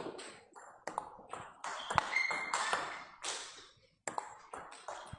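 Table tennis ball being hit and bouncing in a feeding drill: a few sharp pings about a second apart, then a quick run of light taps near the end.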